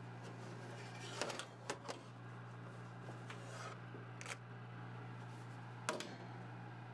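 Metal baking sheet clinking and scraping against the wire oven rack as it is slid out of the oven, a few short sharp knocks spread over several seconds, over a low steady hum.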